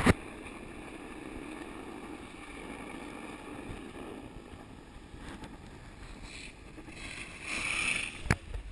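Skis sliding over packed, groomed snow with wind rushing over the microphone; a louder scraping hiss swells near the end, followed by one sharp knock.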